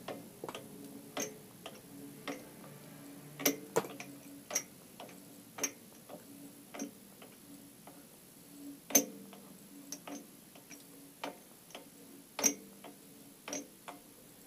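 Small metal lathe's carriage being cranked by hand along the bed: scattered metallic clicks and light knocks from the handwheel and carriage, a few louder ones among them, about one or two a second and unevenly spaced.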